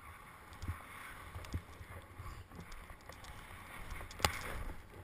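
Snowboard sliding through powder snow with a steady hiss, wind rumbling on the camera's microphone. A few low thumps and one sharp click near the end, which is the loudest sound.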